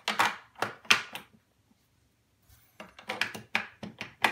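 AA batteries being pushed into the plastic battery compartment of a Cat Mate Elite microchip cat flap: sharp plastic clicks and clacks, a few in the first second or so, then a pause, then a quicker run of clicks near the end.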